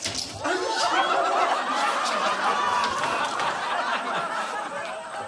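Studio audience laughing, many voices together, coming in just after the start, loudest about a second in and slowly dying down.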